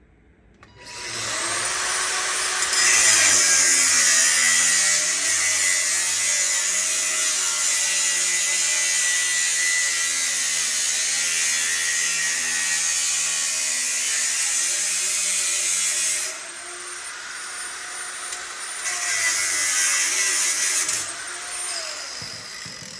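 Electric power tool cutting through metal exhaust pipe. The motor spins up about a second in and cuts steadily under load. It runs lighter for a few seconds, cuts again, then spins down near the end.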